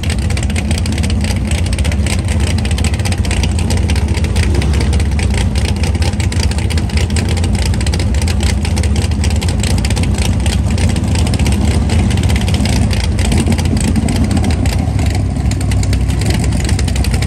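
Drag race car engine running loud and steady, with no clear rev-up or launch.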